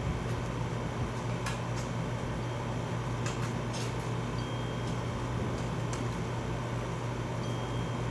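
Steady low hum of a running air-conditioning unit, with a few faint ticks scattered through.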